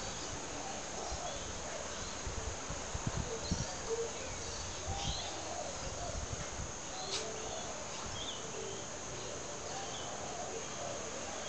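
Alaskan Malamutes play-fighting, with short throaty vocal sounds and a few soft scuffling thumps about three to four seconds in, over a steady chorus of crickets.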